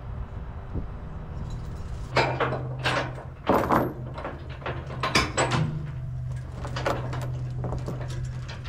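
Heavy steel tie-down chains clanking and rattling against a wooden trailer deck as a tractor is chained down: a run of sharp metal clanks from about two seconds in, over a steady low hum.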